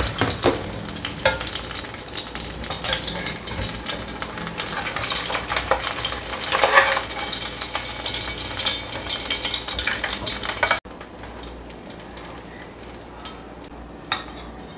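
Fish frying in hot oil in a wok, sizzling and crackling, with a spatula stirring and scraping in the pan. About eleven seconds in the sizzle cuts off abruptly, leaving a quieter background with a few light clicks.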